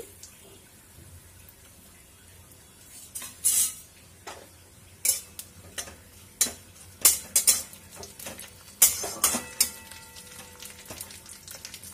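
A spatula scraping and clacking against a steel kadai as chopped coconut is stirred while frying in oil and ghee, over a low sizzle. It starts after about three quiet seconds, with strokes coming at uneven intervals.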